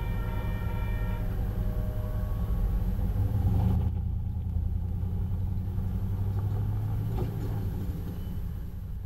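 Railroad crossing warning bell ringing and stopping about a second in, over a loud low rumble that swells in the middle and eases off near the end.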